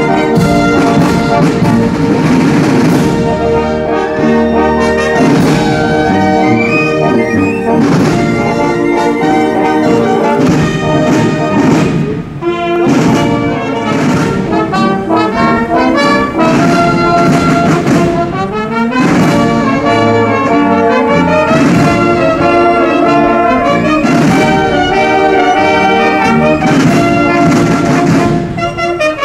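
Foreign Legion military band playing brass music, with bugles and sousaphones carrying the tune over a drum beat.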